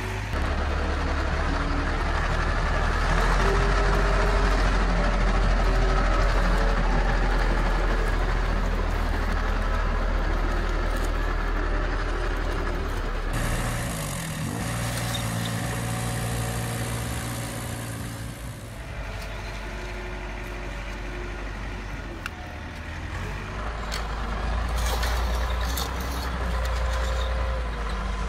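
Heavy truck-style diesel engine running at a steady low idle. Partway through, a hissing noise over a different engine note takes over for about five seconds before the idle returns.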